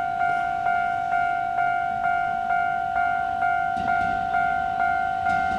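Railway level crossing warning bell ringing steadily at a little over two dings a second, signalling an approaching train.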